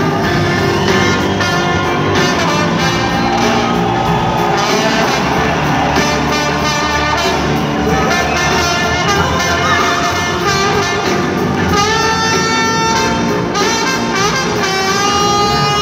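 A live blues-rock band with a horn section of saxophone, trumpet and trombone playing over drums and bass, heard from the audience in a large hall, with long held notes in the last few seconds.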